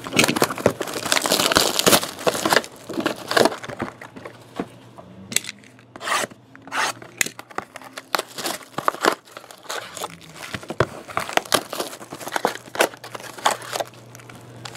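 Clear plastic shrink wrap torn off a sealed box of trading cards and crumpled, with dense crinkling over the first two or three seconds. Scattered rustles and crackles follow as the wrapper and foil card packs are handled.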